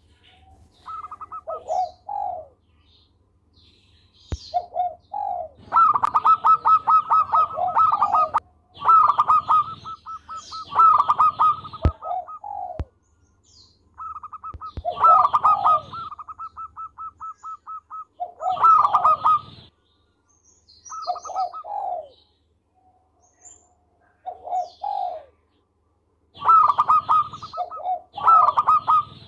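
Zebra dove (perkutut) singing: repeated bouts of quick, rattling cooing notes, each bout one to a few seconds long with short pauses between.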